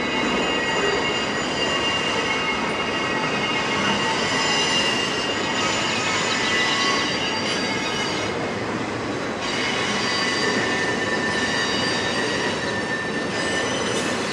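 Freight train flatcars rolling past, loaded with large pipe and then empty. Steady rolling rumble with several high, steady wheel-squealing tones that shift in pitch about two-thirds of the way through.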